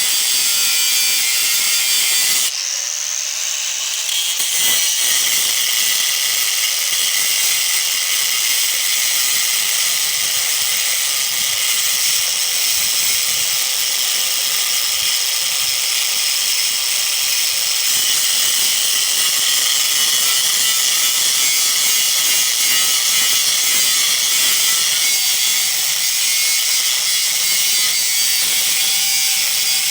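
Angle grinder with a cut-off wheel running steadily while cutting through an electric motor's casing, a loud high-pitched grinding hiss. It briefly eases off, as if lifted off the cut, about three seconds in, then bites again.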